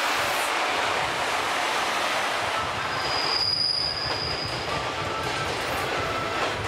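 EF66 electric locomotive passing close, then its blue sleeper coaches rolling by with a steady rumble of wheels on rail. A short high wheel squeal rings out about three and a half seconds in.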